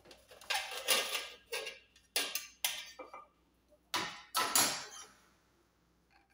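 Cookware being handled: a run of short scrapes and knocks from a metal cooking pot and utensils, stopping about five seconds in.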